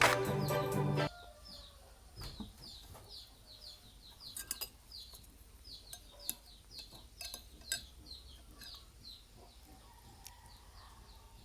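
Background music cuts off about a second in. After it come faint, high peeping calls of fowl, about two short falling chirps a second, with scattered small clicks.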